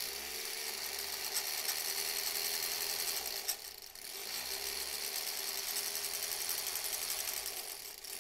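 Electric sewing machine running steadily as it sews a line of topstitching along a fabric edge; it eases off briefly about three and a half seconds in, then picks up again.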